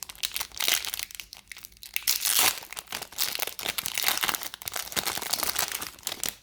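Foil wrapper of a Pokémon booster pack crinkling and tearing as it is opened by hand, a dense irregular crackle that stops abruptly at the end.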